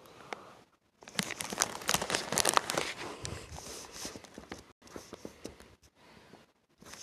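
Paper crinkling and tearing as a present is unwrapped: a dense run of crackles starting about a second in, thinning out toward the end.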